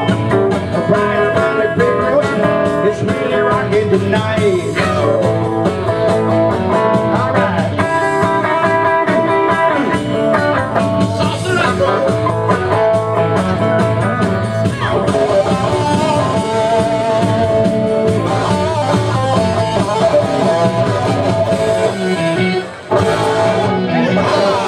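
A live band song: a guitar played along with a group of voices singing together into microphones. The music breaks off for a moment near the end, then picks up again.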